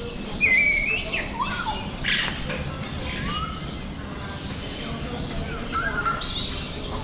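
A group of parrots calling: many short whistles, chirps and squawks that rise and fall in pitch and overlap one another.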